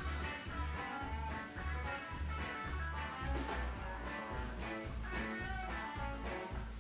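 Background music: an upbeat swing or blues tune with plucked guitar over a steady bass beat.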